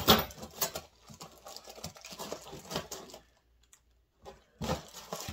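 Hands rummaging in a cardboard box: plastic-bagged metal mounting plates and packaging clicking and rustling in a quick string of small knocks, loudest at the start, with a pause of about a second before it picks up again near the end.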